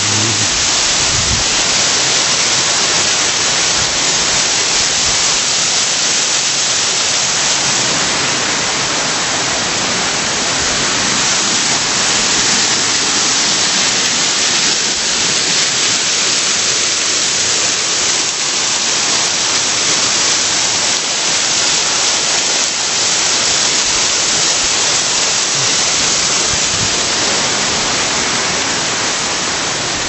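Waterfall and a rocky mountain stream: loud, steady rushing of falling and tumbling water.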